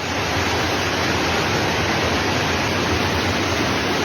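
Floodwater rushing, a loud, steady roar of moving water.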